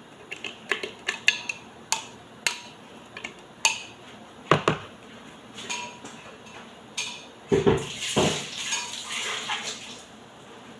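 Kitchen clatter: dishes and utensils clinking and knocking in a string of separate strikes, some of them ringing briefly, with a busier stretch of clattering about three-quarters of the way through.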